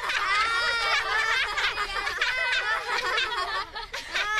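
High-pitched cartoon voices snickering and laughing in short, repeated bursts.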